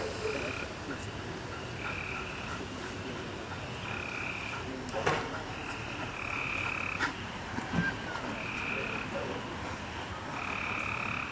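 Frogs calling in a repeated chorus: short, high calls about every second and a half. Two sharp knocks sound about five and seven seconds in.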